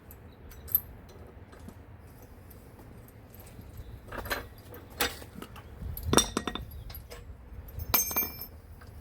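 Metal tools and hardware being handled: scattered clinks and clanks, some ringing briefly, growing busier from about four seconds in.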